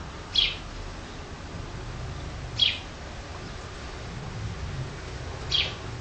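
Sparrow giving three single short chirps, each sliding slightly downward, a couple of seconds apart.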